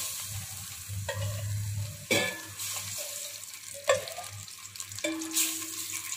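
Cooking oil heating in a wide metal pot, with a steady hiss of sizzling. Three or four sharp taps break through it.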